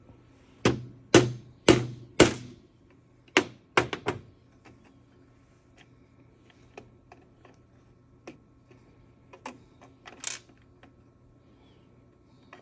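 Hammer blows: four sharp strikes about half a second apart, then three more in quick succession, followed by a few faint light taps and two louder knocks near the end.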